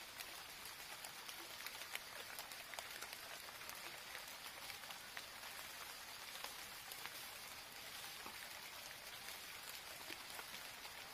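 Faint steady hiss with many small scattered ticks and crackles.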